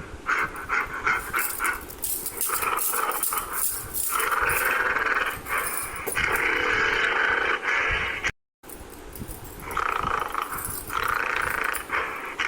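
Gorilla calls: a quick run of short panting calls, then long harsh calls, broken by a brief dead silence about two-thirds of the way in.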